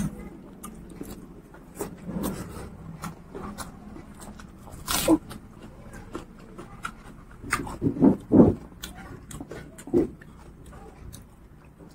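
Close-up chewing and lip-smacking of a person eating rice and fatty pork curry with the fingers: wet, sticky mouth sounds and small clicks. There are louder smacks about five seconds in, around eight seconds and again near ten seconds.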